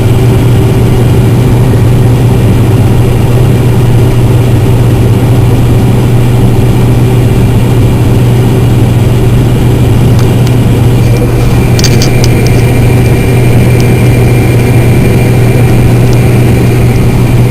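Combine harvester running steadily while cutting and threshing soybeans: a loud, even mechanical drone with a strong low hum. A few faint clicks come about two-thirds of the way through.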